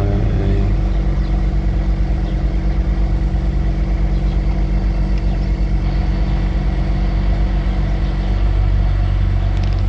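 Cadillac's engine idling steadily, a low, even hum heard from inside the car.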